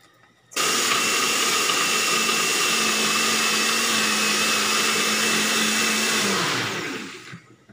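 Super Blend 1000 personal blender running, its cup pressed onto the motor base, blending basil, garlic and oil into pesto. It starts abruptly about half a second in, runs steadily with a high whine, and winds down to a stop just before the end.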